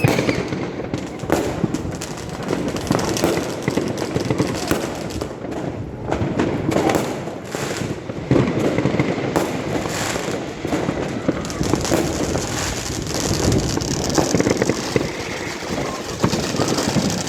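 Many fireworks and firecrackers going off without a break: a dense run of overlapping bangs and crackling.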